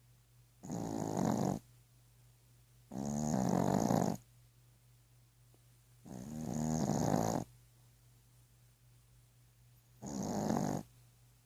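Slow, regular snoring: four snores of about a second each, separated by quiet pauses of two to three seconds.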